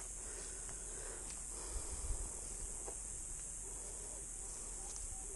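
Steady high-pitched chorus of insects, running without a break.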